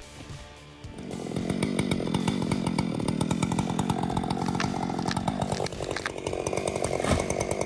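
Chainsaw running steadily, coming in about a second in; its engine note shifts higher about five and a half seconds in.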